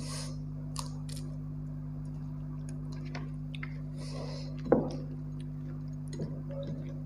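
Fingers mashing roasted eggplant and tomato in a steel plate: soft squishing and small clicks, with one sharper knock against the plate a little under five seconds in, over a steady low hum.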